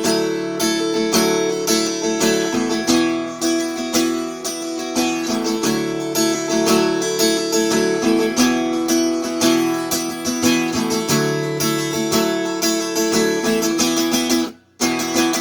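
Instrumental break of a country song: acoustic guitar picked and strummed, with two very brief drop-outs near the end.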